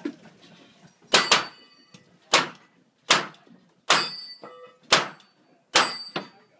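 Single-action revolver fired in a steady string of shots, about one a second, several followed by a thin ringing from steel targets being hit.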